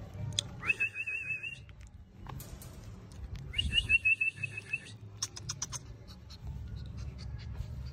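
Shih Tzu puppy whining twice, each a high, wavering whine lasting about a second, with a few soft clicks after.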